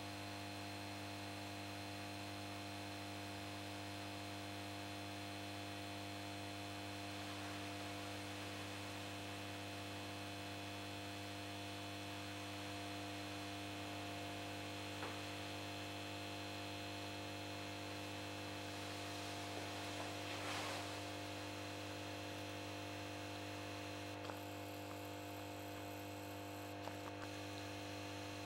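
Old 125 W magnetic choke ballast humming steadily at mains frequency, a low hum with many overtones, as it powers a 1970 Tesla RVL 125W mercury vapour lamp while the lamp warms up. A few faint clicks and a brief soft rustle about twenty seconds in.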